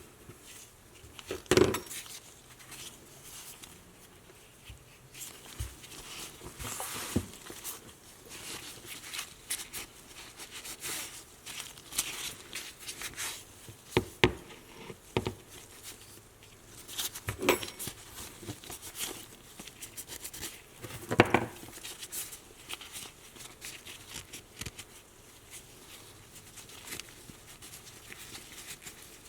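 Irregular clicks, taps and light clatter of small metal parts being handled, with a few louder knocks, the loudest about a second and a half in and again about 21 seconds in.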